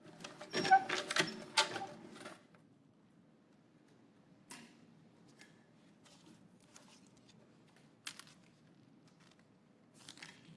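Light clicks and taps from handling a wooden lottery drum and its numbered balls: a quick cluster in the first two seconds, then a few faint, scattered clicks.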